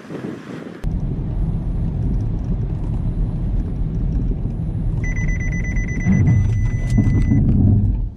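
Road and engine rumble inside a 2019 Kia Seltos's cabin as it drives at a target car. About five seconds in, a high rapid beeping starts and turns into a steady tone for a second or so: the forward collision warning alert of the autonomous emergency braking system.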